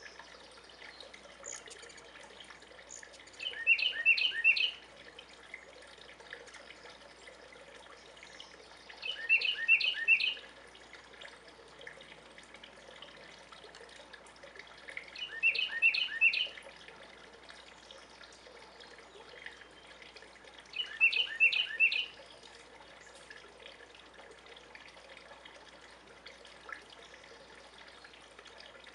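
Carolina wren singing its rolling, repeated-phrase song: four songs about five to six seconds apart, each a quick run of three or four identical phrases.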